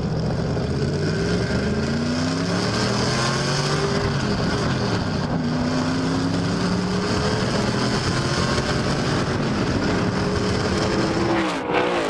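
Stock race car's V8 engine running hard on the track, its pitch climbing again and again as it pulls through the revs, over steady wind and road noise. Near the end the pitch sweeps quickly downward, like a car passing by.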